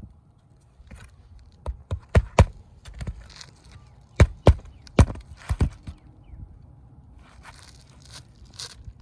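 Hammer driving roofing nails back into asphalt shingles: a quick run of about four sharp blows, a pause, then about five more, with some scraping and rustling of shingles in between.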